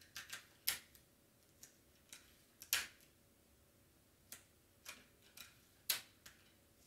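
Cardstock pieces being handled and pressed down on a cutting mat: irregular sharp clicks and light rustles, with three louder snaps among them.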